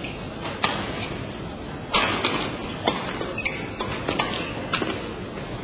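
Badminton rally: rackets striking the shuttlecock in a string of sharp smacks at an uneven pace, the loudest about two seconds in.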